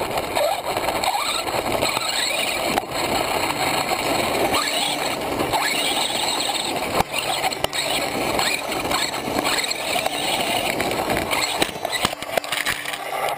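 Traxxas Stampede 4x4 VXL RC truck driving fast over gravel, heard from its own onboard camera. The brushless motor's whine rises and falls with the throttle over the crunch and rattle of stones under the tyres. Near the end there are irregular knocks as the truck tumbles.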